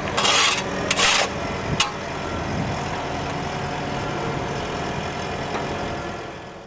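Volvo EW 140 C wheeled excavator's diesel engine running steadily at idle. In the first second and a half there are two short bursts of hiss, then a single click, and the sound fades out at the very end.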